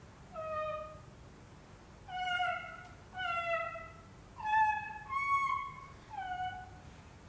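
Six short meow-like cries, about a second apart, each pitched and drifting slightly downward.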